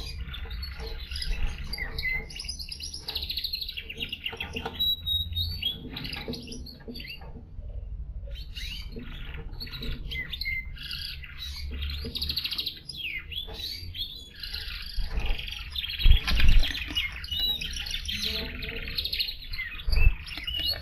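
Belgian canaries singing: continuous fast, warbling trills and chirps. A few dull low thumps come about two-thirds of the way through and again near the end.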